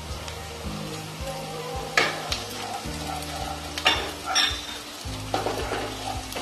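Wooden spatula stirring sliced onions and green chillies sizzling in mustard oil in a non-stick kadai. Sharp scrapes and knocks of the spatula against the pan come about two seconds in and again near four seconds.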